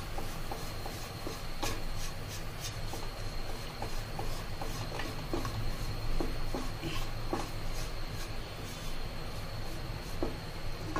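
Light rubbing and scattered soft clicks and taps of food preparation by hand, over a steady low hum and a faint thin high whine.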